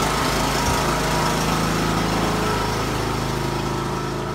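John Deere LA125 lawn tractor's engine running steadily at idle, warming up just after being started on a freshly recharged battery. It gets a little quieter toward the end.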